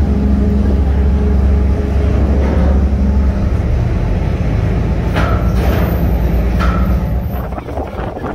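Car ferry's engines running with a steady low rumble, which eases a little about three seconds in.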